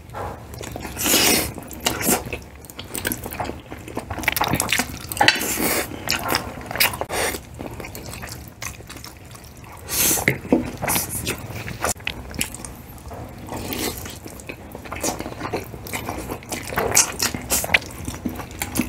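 Two people slurping Filipino-style spaghetti and chewing, with irregular slurps and mouth sounds close to the microphone; the loudest slurps come about a second in, around the middle and just past halfway.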